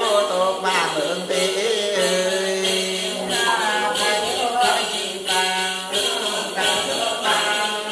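Man chanting a Then ritual song in long, wavering sung phrases, with a sharp beat about twice a second.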